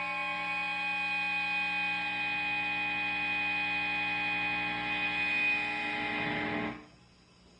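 A sustained droning tone rich in overtones, held steady at one pitch, then cut off abruptly near the end.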